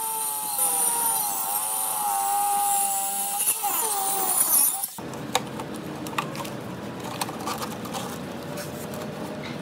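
Angle grinder running and cutting into a wooden console board, its whine dipping in pitch as the disc bites and then winding down about four and a half seconds in. After it stops, light clicks and knocks of the board and a screen being handled.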